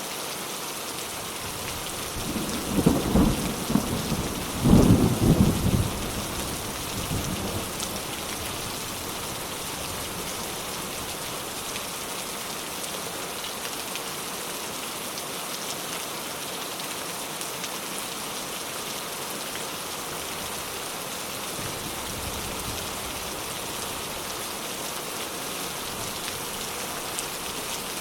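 Steady rain falling with a roll of thunder: a loud rumbling clap about two seconds in that dies away by about eight seconds, then only the rain, with a faint low rumble near the end.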